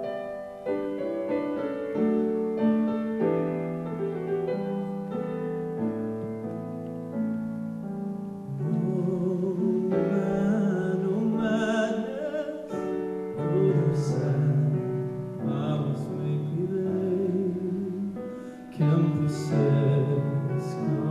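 Piano accompaniment playing alone at first. About eight or nine seconds in, a male solo voice comes in through a microphone, singing with vibrato over the piano.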